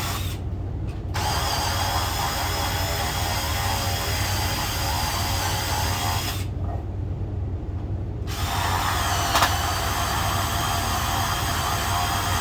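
Power drill boring deeper into wood with a paddle bit, running with a steady whine that eases off twice: briefly near the start and for about two seconds past the middle.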